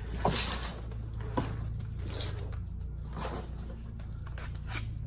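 A few scattered handling clicks and rustles, as of a soap container and tools being picked up and moved, over a steady low hum.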